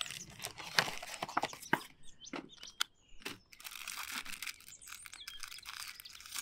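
MRE ration packets crinkling and rustling as they are handled, with sharp crackles, then a longer ripping sound as a small packet is torn open.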